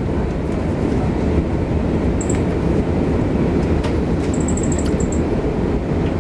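Steady low cabin rumble of an Airbus A340-600 taxiing, its four Rolls-Royce Trent 500 engines near idle and the wheels rolling on the taxiway, heard from inside the cabin.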